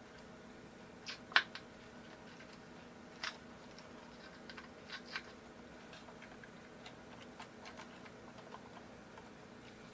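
Scattered small clicks and taps of hand work on a guitar's pickup wiring while it is being unsoldered. One sharper, louder click comes about a second and a half in.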